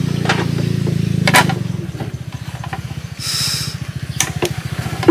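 Small boat engine running with a low, even firing beat that slows about two seconds in, as if throttled back. A few sharp knocks and a short hiss just after three seconds sit on top.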